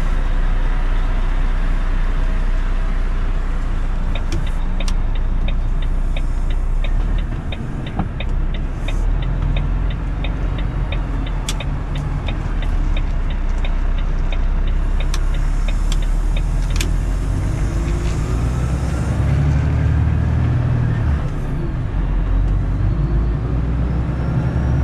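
Mercedes-Benz Actros truck engine running, heard from inside the cab. The turn-signal indicator ticks steadily, about three ticks a second, for about twelve seconds. Near the end the engine pitch rises as the truck accelerates away.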